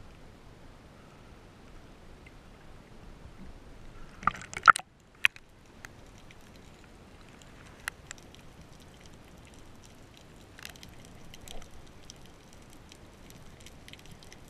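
Water lapping and sloshing around a spearfisher at the surface, then a short burst of splashing about four seconds in as he goes under. After that, muffled underwater ambience with scattered faint clicks.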